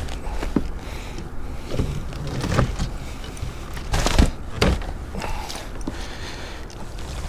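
Gear handling in a plastic fishing kayak while a hooked bass is brought to the landing net: scattered knocks and clicks of the net and rod against the hull, the loudest about four seconds in, over a steady low rumble.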